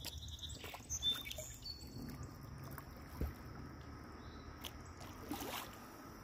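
A few light knocks and bumps from a plastic Lifetime Tamarack Pro 103 sit-on-top kayak and the gear aboard it being handled while afloat, over a low rumble of wind and water.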